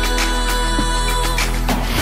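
Background music with held chords over a steady bass note.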